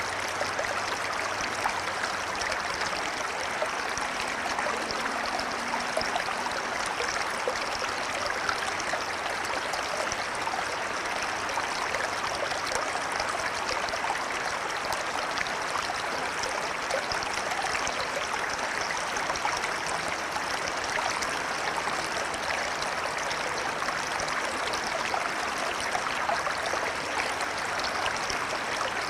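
A river flowing steadily: an even rush of running water with fine splashing and trickling throughout.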